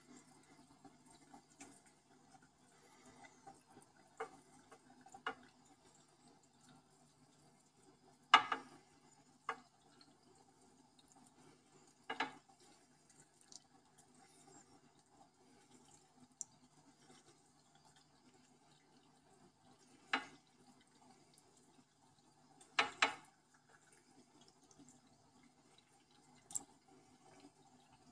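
Water in a turtle aquarium: scattered splashes and drips, about eight of them at irregular intervals, the loudest about eight seconds in. Under them is the faint steady hum of the tank's internal filter.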